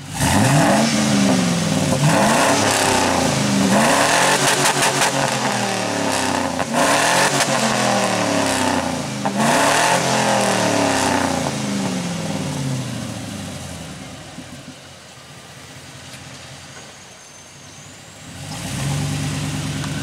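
Chevy 6.0 L LQ4 V8 exhaust through a Borla XR-1 straight-through perforated muffler, blipped in a quick series of free revs that rise and fall. It settles to idle, then the engine pulls up again near the end as the truck drives off.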